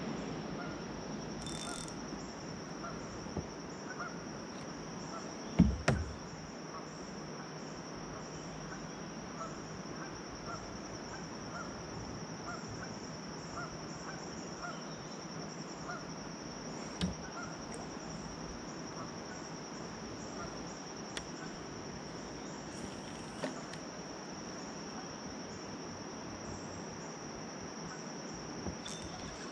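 Steady high-pitched drone of insects from the riverbank vegetation, with a few sudden knocks, the loudest about six seconds in.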